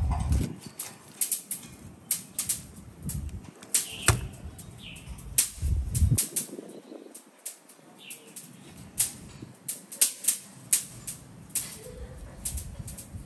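Cleaver blade tapping down on a plastic cutting board in a run of sharp, irregular knocks as it scores a skinned moray eel fillet.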